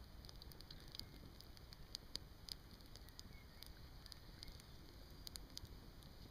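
Pine cones and hazel feather sticks burning in a stainless-steel Honey Stove, with faint scattered crackles and pops over a low background rumble.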